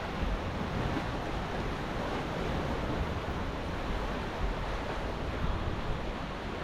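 Wind buffeting the microphone over a steady wash of sea and surf.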